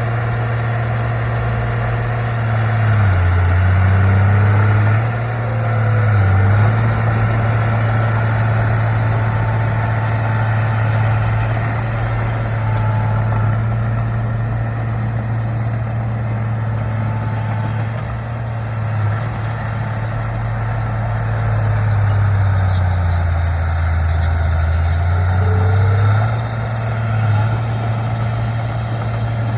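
Bulldozer's diesel engine running steadily. Its pitch dips briefly twice, once a few seconds in and again near the end.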